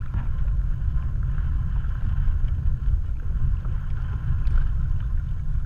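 Wind buffeting the microphone in a steady, gusting rumble, over the faint rush of water along a small sailboat's hull as it sails.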